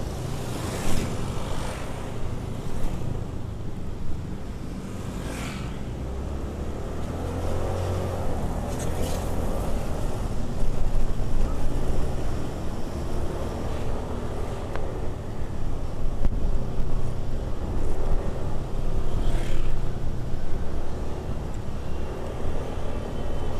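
Motorcycle engine running under way with road noise, getting louder and more uneven from about ten seconds in.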